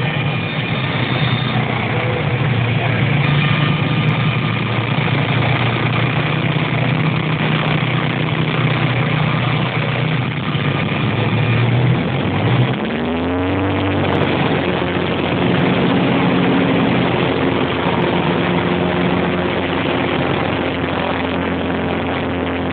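A Bellanca Decathlon's piston engine and propeller heard from inside the cockpit during spin aerobatics, a steady drone over airflow hiss. About halfway through, the engine note drops abruptly and then climbs steadily in pitch as the power changes.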